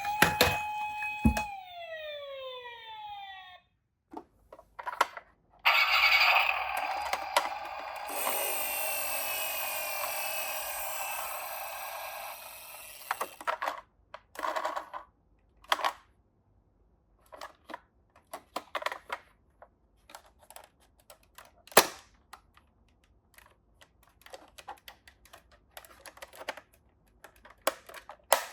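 Toy ambulance minicar's electronic siren sounding with gliding tones, then cutting off after about three seconds. A toy minicar then runs down a slope with a steady rushing rattle for about eight seconds. After that come scattered light plastic clicks and knocks, with one sharper knock past the middle.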